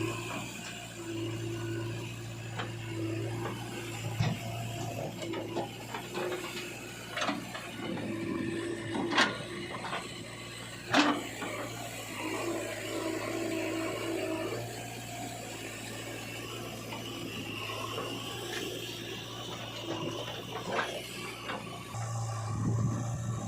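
Diesel engine of a JCB 3DX backhoe loader running steadily while it works, with several sharp metallic knocks, the loudest about nine and eleven seconds in.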